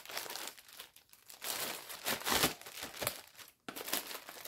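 Clear plastic bag wrapping crinkling in several bursts as it is pulled off a scented-candle box.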